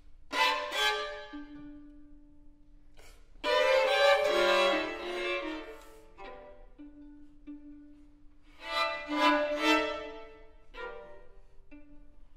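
Two violins playing a contemporary duo: a steady low held note sounds between three loud, busy flurries of notes, one just after the start, one from about three and a half to six seconds in, and one from about nine to eleven seconds in.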